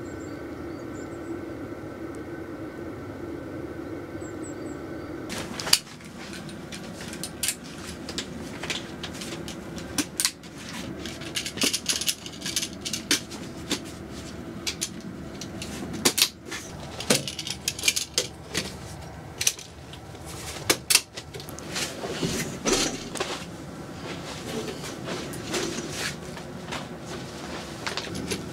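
A steady low hum for about the first five seconds. Then a folding camping cot is assembled, with repeated sharp clicks and clacks as its metal leg frames are fitted and snapped into place.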